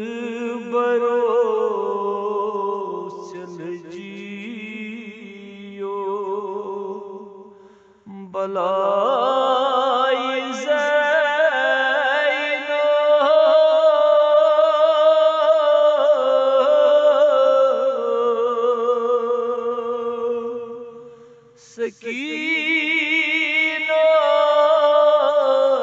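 Male voice chanting a noha, a Shia mourning lament, in long held phrases with heavy vibrato, breaking off briefly about eight seconds in and again near the end.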